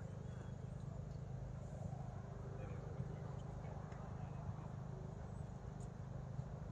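Steady low outdoor rumble with faint, distant voices and a few light knocks.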